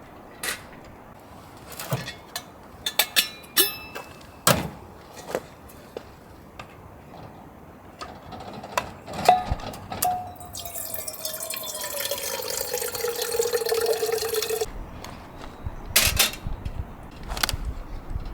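Scattered knocks and clicks of things being handled, then liquid poured for about four seconds, its tone falling steadily as it pours before it stops suddenly.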